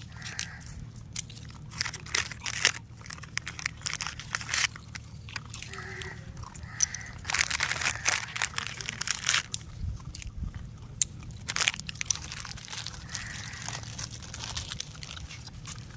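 Puppies and their mother eating, with irregular crunching and chewing of food, the crunches bunching more densely in the middle.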